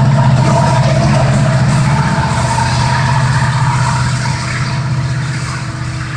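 Union Pacific diesel-electric locomotive working as the rear distributed-power unit of a grain train, its engine running under power as it passes and draws away. The deep engine hum slowly fades.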